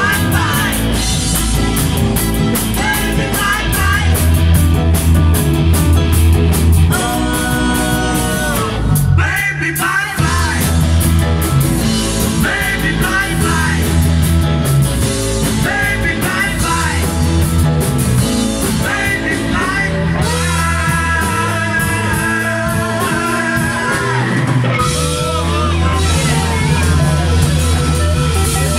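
Live rock song from a small band: electric guitars over a strong bass line and a steady beat, with a woman singing lead. The band breaks briefly about nine seconds in and then comes back.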